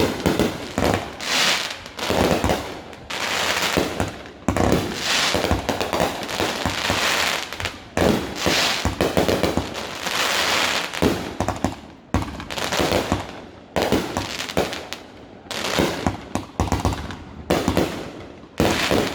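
Fireworks going off in quick succession: one sharp bang after another, each trailing off in a decaying rumble and crackle.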